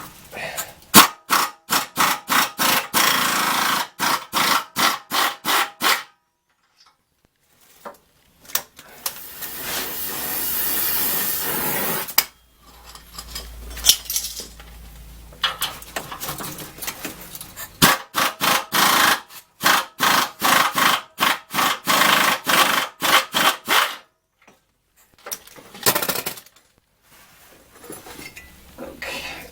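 Impact wrench hammering the rusty 15mm exhaust flange nuts loose, in rapid repeated bursts. It runs in two long spells, one near the start and one about two-thirds of the way in. Between them comes a steady hiss lasting a few seconds, with scattered knocks of metal.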